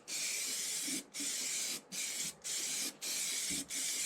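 A patch being cut out of sheet metal with a hissing power cutting tool, worked in short runs of about half a second to a second with brief pauses between them.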